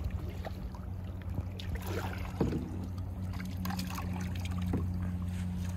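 Kayak paddles dipping and water trickling and splashing around a plastic sit-on-top kayak, with scattered small knocks, over a steady low hum.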